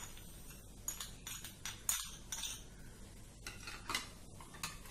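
A spoon clinking and scraping against bowls as sugar is spooned into semolina batter, with a few light knocks as small bowls are handled.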